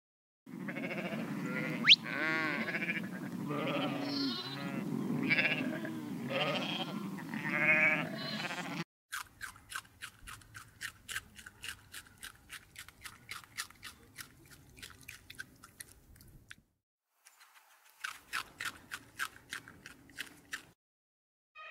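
Sheep bleating repeatedly over a steady low background. From about nine seconds in, a group of guinea pigs crunches on cucumber and greens: quick, crisp bites at about three to four a second, with a short pause near seventeen seconds.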